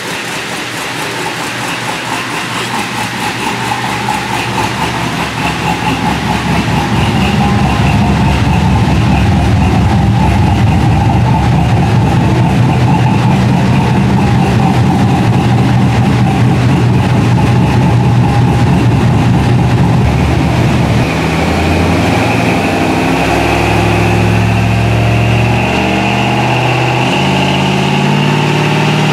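2003 Chevrolet Silverado's 5.3L V8, with a Brian Tooley Racing Stage 4 truck cam, stock manifolds and a Flowmaster 40 series muffler, running on a chassis dyno for a baseline pull. The engine note builds over the first several seconds and then holds steady. About 21 seconds in it drops back, and its pitch then changes in steps.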